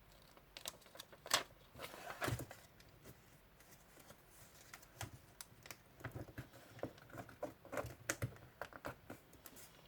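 Paper being folded and creased by hand for an origami frog: scattered crisp clicks and crinkles, the loudest a little over a second in and again just after two seconds, then a run of smaller taps and creases from about five seconds in.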